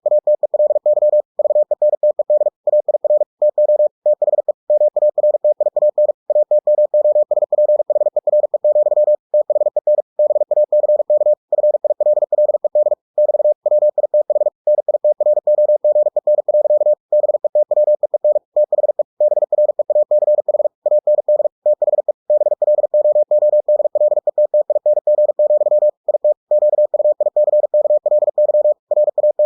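Computer-generated Morse code (CW) sent at 45 words per minute: a single steady mid-pitched tone keyed on and off in fast dits and dahs, with short silent gaps between words.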